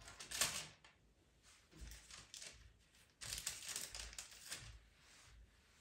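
Paper crinkling and rustling as a translucent protective sheet is handled, in short bursts: the loudest about half a second in, then a run of rustles from about three to four and a half seconds in.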